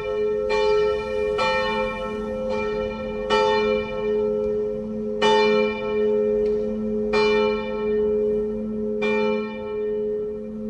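The middle bell of St. Emmeram's church swinging and ringing alone. Its strikes come about a second apart at first, then slow to about two seconds apart and stop about nine seconds in, while the bell's low hum keeps sounding.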